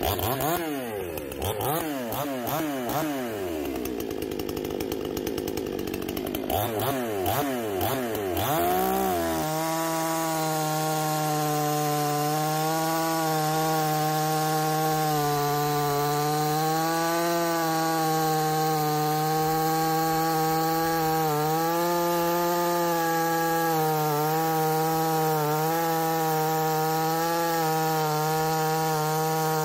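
Stock Wemars 6200 two-stroke chainsaw, a Chinese 62 cc clone, revving up and down for about nine seconds, then held at full throttle with a steady high engine note as it cuts through a large log, its pitch dipping slightly now and then under load.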